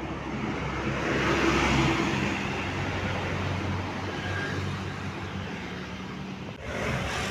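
Tour bus engine running as the bus passes close by, swelling to its loudest about two seconds in and then easing off.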